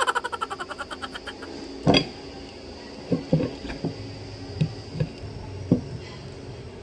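Knife and fork knocking and scraping on a plate while cutting a burger: scattered short knocks, with a louder one about two seconds in. It opens with a rapid rattle of clicks that fades out over about a second and a half.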